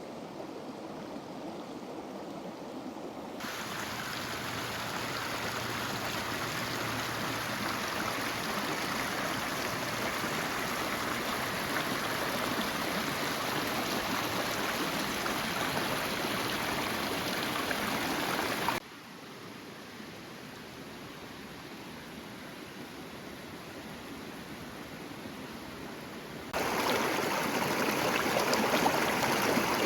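Stream flowing with a steady rushing sound. It gets louder suddenly about 3 seconds in, drops abruptly about two-thirds of the way through, and jumps louder again near the end.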